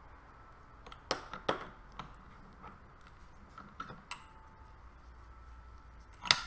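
Steel gearbox parts clinking and knocking against each other as gears and a bearing sleeve are fitted by hand onto the shafts of a Formula Ford race-car gearbox. There are a few light clinks about a second in, a couple more around four seconds, and one sharper clack near the end.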